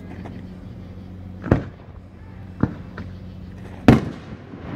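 Aerial fireworks going off: four sharp bangs about a second apart, the last one the loudest, over a steady low hum.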